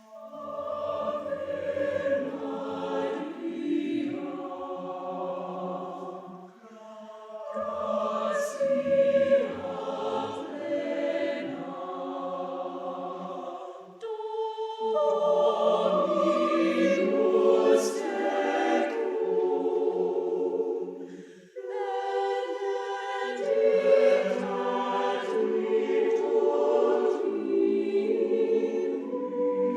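Church choir singing in harmony, the phrases held long and breaking off briefly a few times.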